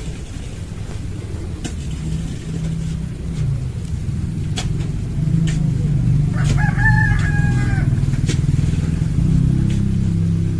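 A rooster crows once, a held call about six and a half seconds in that bends down at the end, over a steady low rumble with a few faint clicks.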